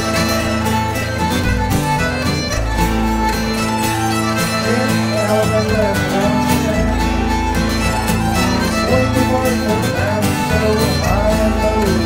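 Contra dance tune played live on a Swedish nyckelharpa, a bowed keyed fiddle, carrying the melody, over a baritone guitar giving low bass notes and chords.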